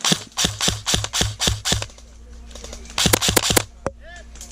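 Airsoft gun firing: a steady string of about eight shots over the first two seconds, about four a second, then a quicker burst of about five shots around three seconds in.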